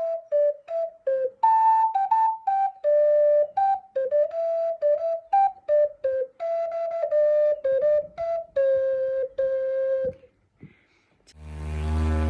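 A flute-like wind instrument playing a tune of short separate notes, about two to three a second, which stops about ten seconds in. About a second later a deep, steady drone sets in and swells.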